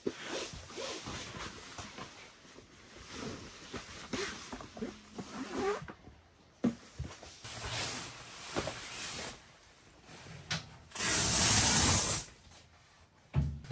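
Rustling and scraping as interlocking foam floor tiles and a crinkly heat-resistant floor mat are laid out over plastic sheeting, with light knocks throughout. A louder, longer rustle comes about eleven seconds in.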